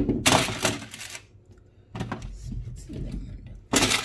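Baking paper rustling and crinkling as potato chunks are laid out on it. There is a long rustle about a second long near the start and a shorter one near the end, with soft handling knocks between.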